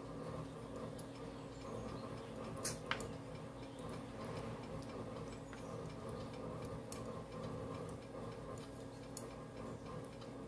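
Soft, regular ticks about once a second over a steady low hum, with two sharper clicks close together about three seconds in.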